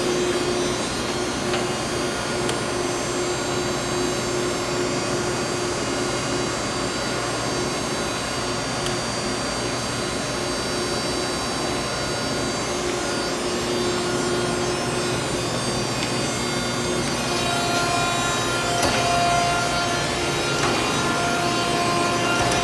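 A 16 x 32 Okamoto horizontal-spindle surface grinder running under power, with a steady machine hum and whir. About two-thirds of the way through, a second, higher steady tone joins in.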